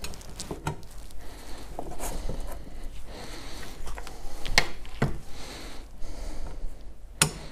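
Scattered light clicks and rubbing of a Phillips screwdriver working the screws on a fuel pump hanger bracket, with a sharper click near the end.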